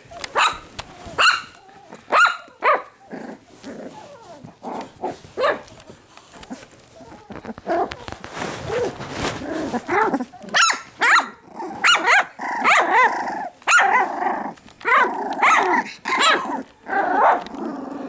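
A litter of young puppies barking, yipping and growling at play. The short, high barks come every second or so at first, then thick and fast from about ten seconds in.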